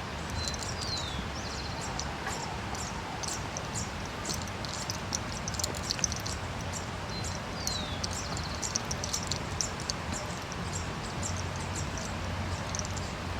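Small birds chirping and twittering over steady background noise; twice a short whistled note drops in pitch.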